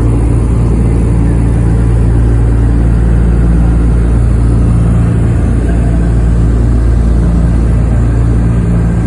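Douglas DC-3's two radial piston engines droning steadily, heard from inside the cabin with the rush of air around the fuselage.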